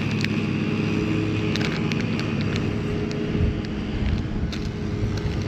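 A steady low engine hum, as of a vehicle idling, with scattered light clicks of lure packaging being handled.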